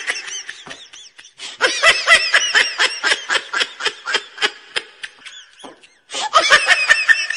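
Laughter sound effect: a single voice laughing hard in quick, high-pitched ha-ha pulses, in three bouts with two short breaks.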